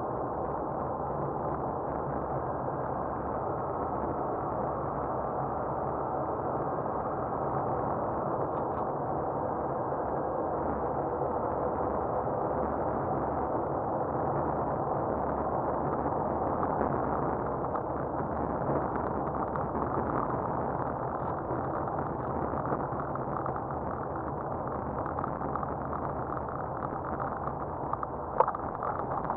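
Car driving on a snow-covered road, heard from inside the car through a windshield dashcam: a steady hum of engine and tyre noise. A sharp knock sounds near the end.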